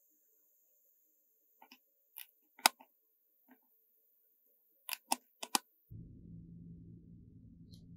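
About ten sharp, irregular clicks of metal tweezers setting Oreo cookie pieces onto a whipped-cream cake, the loudest a little under three seconds in. A low steady hum starts about six seconds in.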